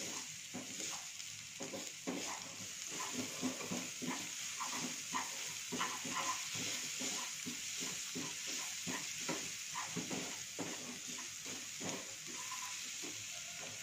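Crushed garlic and spices sizzling in oil in a non-stick frying pan while being stirred with a wooden spatula. A steady sizzle runs under frequent short scrapes and taps of the spatula against the pan.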